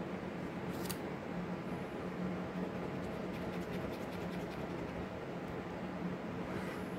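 Scratch cards rubbed and handled on a tabletop, with scattered faint scraping strokes and one short sharp click about a second in. A low steady hum sits underneath.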